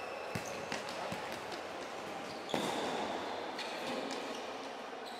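Indoor futsal game play: the ball knocks off feet and the court floor a few times, and about halfway through a player's shoe gives a squeak lasting about a second on the hard court.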